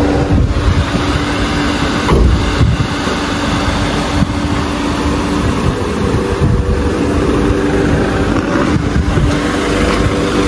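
Vehicle engine idling with a steady hum, over a low rumble on the microphone.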